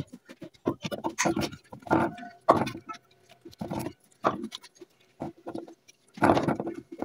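Paintbrush scraping and dabbing thick resin mix in a plastic bowl and onto a plastic mold: irregular short wet scrapes and taps with brief gaps between.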